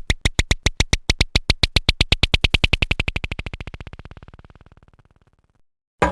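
Cartoon sound effect: a fast, even run of sharp clicks, about ten a second, dying away over about five seconds. A short separate hit comes right at the end.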